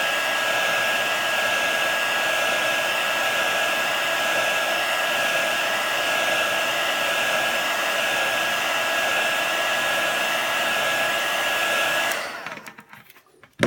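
Heat gun blowing steadily with a thin whine, heating the screen's adhesive so the glass separates; it is switched off about twelve seconds in and winds down over a second, followed by a short click.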